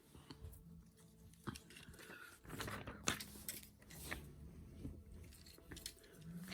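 Plastic Lego pieces being handled, with a string of irregular sharp clicks and light rattles as they are picked up and fitted together.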